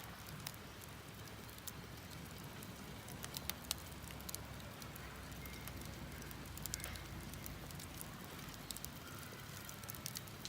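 Campfire crackling: faint, irregular pops and snaps of burning wood.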